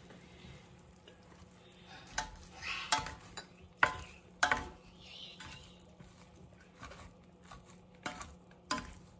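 A spoon stirring cooked rice pilaf in a stainless steel pot, knocking and clinking against the pot at irregular intervals, several times from about two seconds in.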